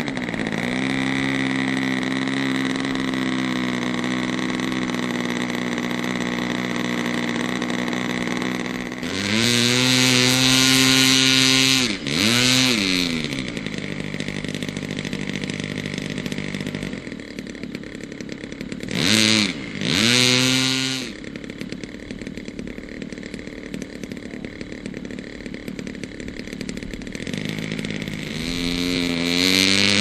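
OS 160 FX two-stroke glow engine of a Seagull Edge 540 model plane running at idle with its propeller spinning, revved up for a few seconds about nine seconds in, blipped briefly around twelve, nineteen and twenty seconds, then opened up steadily near the end as the plane starts its takeoff roll.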